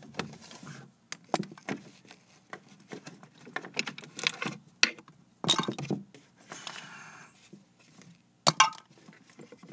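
Wooden pencils clicking and clattering against each other and the desk as a handful is picked up from behind it: irregular sharp knocks and rattles, with a short rustle about seven seconds in.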